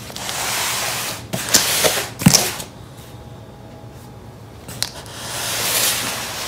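Hands rubbing and sliding over a cardboard shipping box wrapped in clear packing tape, in two long scuffing swells, with a few sharp knocks and taps against the box about two seconds in.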